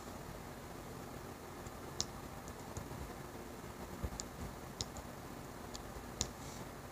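Faint, irregular light clicks of a diamond-painting pen picking small plastic resin drills from a tray and pressing them onto the adhesive canvas.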